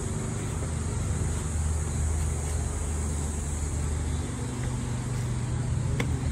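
A vehicle's engine running steadily, a low drone that shifts slightly higher in pitch a little past halfway, with one sharp click near the end.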